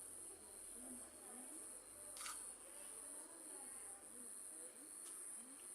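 Crickets chirping at night: a faint, steady, high-pitched pulsing trill, with a soft click about two seconds in.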